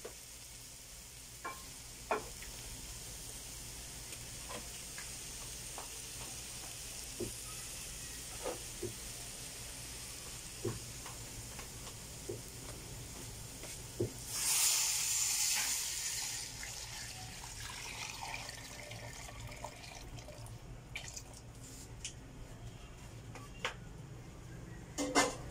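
Pork ribs, ginger and onion sizzling in a hot stainless-steel pot, with scattered sharp pops. About halfway through, water is poured in with a loud rushing hiss lasting a couple of seconds, and afterwards the sizzle is fainter.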